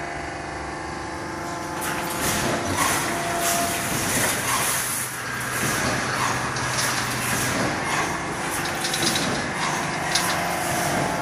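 Automatic wire-mesh fence panel welding machine running: a steady electrical hum, joined from about two seconds in by a repeating clatter of welding strokes with air release from its pneumatic welding heads, each stroke resistance-welding a row of cross wires into the mesh.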